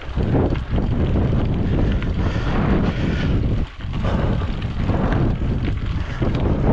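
Wind buffeting the microphone of a camera riding along on a mountain bike, a loud gusting rumble that dips briefly about halfway through.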